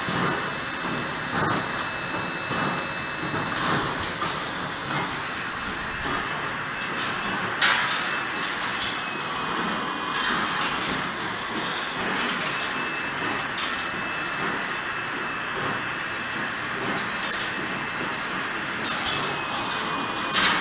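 Hatchery egg conveyors and packing machinery running: a steady mechanical clatter with a thin high whine, broken by sharp clacks every few seconds.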